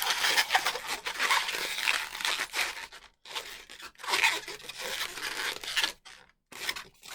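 Latex twisting balloons rubbing against the hands and each other as they are twisted into shape, a busy run of scratchy rubbing strokes with short breaks about three seconds in and again just after six seconds.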